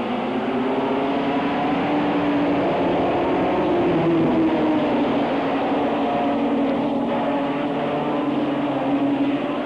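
A pack of late-model stock cars racing past, several V8 engines running hard together. Their pitches rise and fall as the cars go round, loudest about four seconds in.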